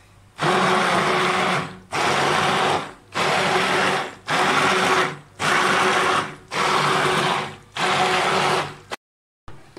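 Hand blender pulsed on and off seven times, each run lasting about a second, churning a thick porridge of lentils and shredded chicken in a pot.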